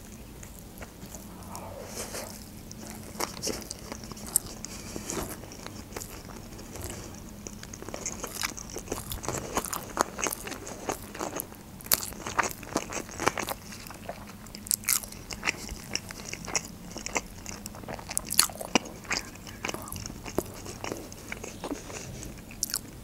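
Close-miked chewing of a sushi roll, with many irregular sharp mouth clicks and crunches.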